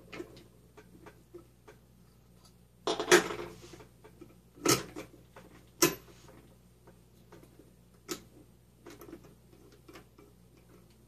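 Metal transmission parts clicking and clinking as gears and shift forks are worked by hand into a garden-tractor transmission case. Louder clinks come about three seconds in, then once each near five and six seconds, with a lighter one around eight seconds.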